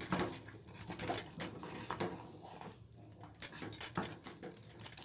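A ladle stirring thick varagu rice and moong dal pongal in an aluminium pressure cooker, with irregular scrapes and taps against the pot as the added milk is mixed in.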